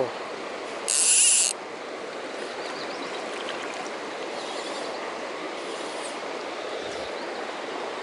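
Shallow mountain stream running steadily over gravel and stones. A short, sharp hiss about a second in.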